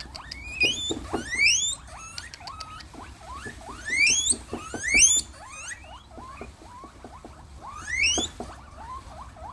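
High animal squeaks, each sweeping quickly up in pitch, in loud clusters near the start, about four seconds in and about eight seconds in, with softer squeaks and small ticks between.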